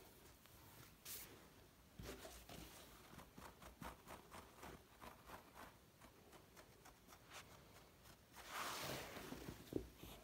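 Faint rustling and scratching of a hand and a kitten's paws moving on a pile rug, with a louder swish about eight and a half seconds in and a sharp click just after.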